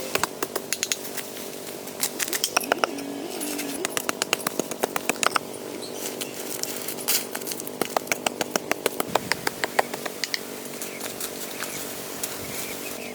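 A small engine running steadily, with many sharp knocks and clicks coming in quick runs over it.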